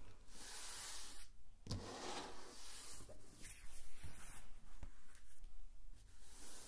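Soft rubbing and rustling with a few light taps, as hands start handling the slime-making materials.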